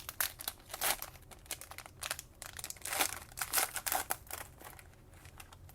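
Plastic wrapper of a trading card fat pack being torn open and crinkled, with irregular crackling that dies down near the end.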